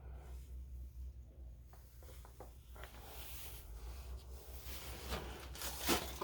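Furnace running with a low steady hum, with faint rubbing and clicking noises over it and a louder brief rustle near the end.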